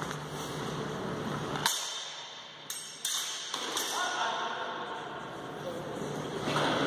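Steel training longswords (feders) striking in a fencing bout: one sharp clash about a second and a half in, then a few lighter knocks, with voices in the hall.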